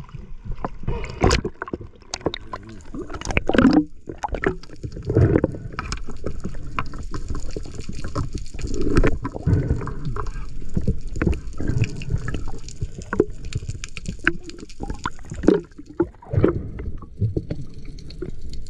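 Sea water sloshing and gurgling around a swimming diver, with many irregular splashes and knocks.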